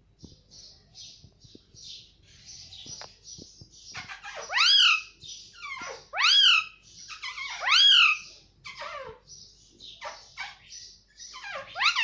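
Indian ringneck parakeet giving three loud calls that rise and fall in pitch, about a second and a half apart, with soft scratchy chatter and a few light clicks before them and more short rising calls near the end.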